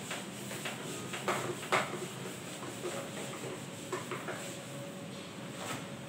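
Whiteboard duster wiping marker writing off a whiteboard: a series of short rubbing strokes and light knocks, the loudest a little under two seconds in.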